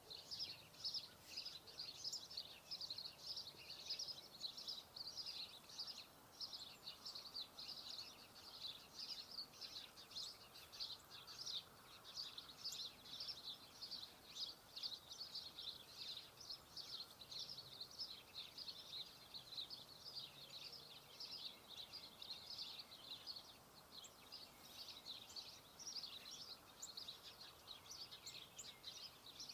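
A faint, continuous chorus of small birds chirping and singing, many short high notes overlapping with no break.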